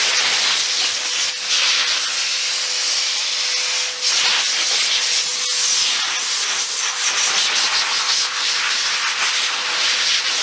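Adam's Polishes Air Cannon car dryer blowing a steady rush of air through its straight nozzle onto a car's chrome grille, drying it. A faint steady motor tone runs underneath.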